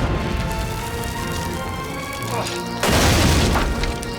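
Dramatic score music with held tones, overlaid by loud rushing booms: one fading at the start and another swelling up about three seconds in.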